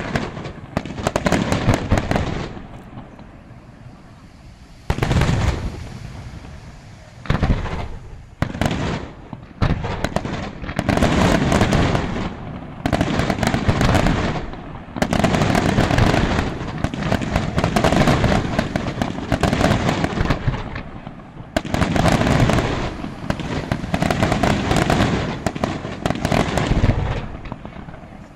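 Aerial fireworks display: volleys of shell bursts and crackling come in dense clusters, with a brief lull about three seconds in and short gaps between the later volleys.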